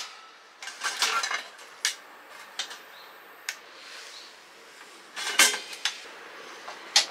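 Clicks and short metallic rattles from a portable kerosene heater's ignition door and igniter knob being worked to relight it. Single sharp clicks come every second or so, with a louder rattle about five seconds in.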